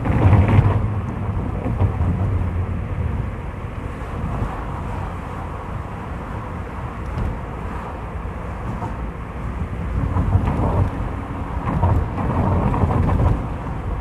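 A car driving, heard from inside the cabin: a steady low rumble of engine and road noise with tyre hiss, louder right at the start and swelling again near the end.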